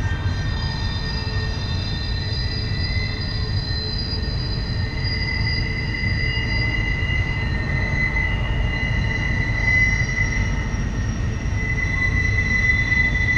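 Freight train rolling through a tight curve, its wheel flanges squealing against the rail in several sustained, wavering high tones over a steady low rumble of the cars. The squeal swells louder about two-thirds of the way in and again near the end.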